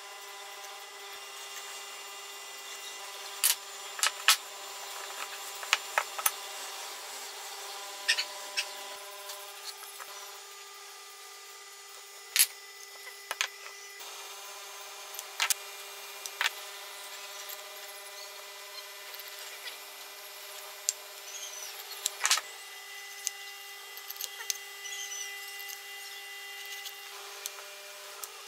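Sharp clicks and knocks at irregular intervals from metal marking tools and hardwood blocks being handled on a wooden workbench, over a steady hum.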